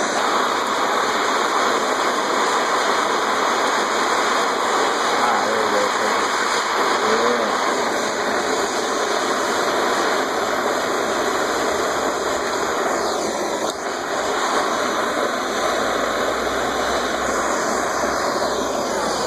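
Handheld gas torch flame hissing steadily as it heats an aluminum snow shovel blade to brazing temperature for an aluminum brazing rod.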